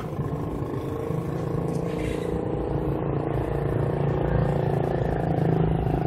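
Toyota forklift running, its engine and hydraulic pump working to raise the mast: a steady hum that grows slowly louder.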